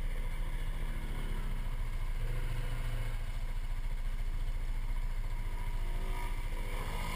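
ATV engine idling steadily, a low even hum.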